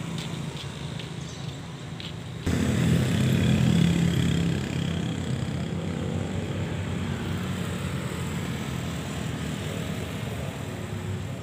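Street traffic with motorcycle engines passing. About two and a half seconds in, the sound jumps suddenly louder, with one engine's drone strongest for a couple of seconds, then settles into steady road noise.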